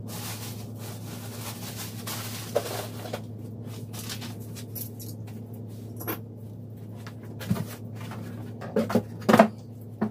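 Household handling noises: scattered light knocks, clicks and rustling as things are moved about, over a steady low hum. The loudest is a short sound about nine seconds in.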